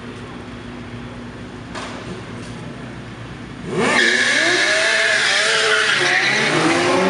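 Motorcycle engines in street traffic: a low steady idle hum, then about four seconds in a sport bike revs and accelerates past, suddenly much louder, its pitch sweeping up and wavering as it pulls away.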